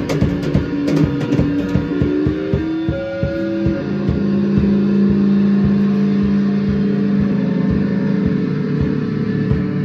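Improvised noise-rock jam of electric bass guitar and drum kit, picked up on a phone's microphone. Dense drum hits and sliding bass notes give way, about three and a half seconds in, to a long held droning note over sparser drumming.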